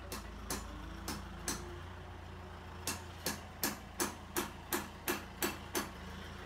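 Hammer blows, three spaced strikes, then after a pause a quick even run of nine, about three a second, over the low steady running of a tractor engine.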